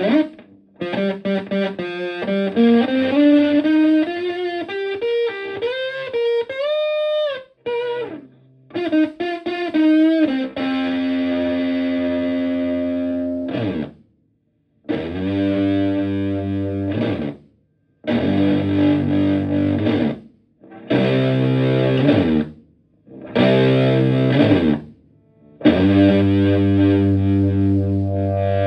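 Stratocaster electric guitar played through a Tone Bender MKI-style fuzz pedal into a Fender Twin Reverb-type amp: fuzzy single-note lead phrases with string bends for about ten seconds, then a run of held, fuzzed chords, each stopped sharply with short silences between.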